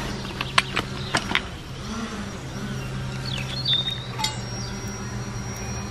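A few light metallic clicks and clinks as small metal camping gear is handled beside a gas canister stove, over a steady low hum. About three and a half seconds in there is a brief high chirp, and one more click follows soon after.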